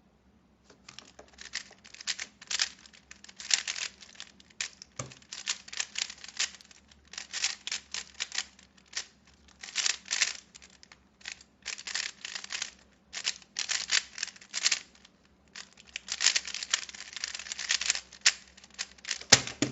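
Spin Master Rubik's Speedcube being turned fast during a timed speedsolve: quick flurries of plastic clicking and clacking from the turning layers, broken by short pauses. There is a sharp knock near the end.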